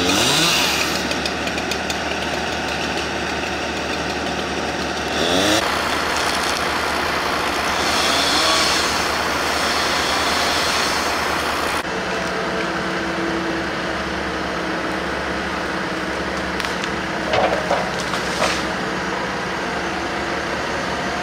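Terex excavator's diesel engine running steadily as it handles logs, with two short rising revs in the first half and a few sharp knocks near the end.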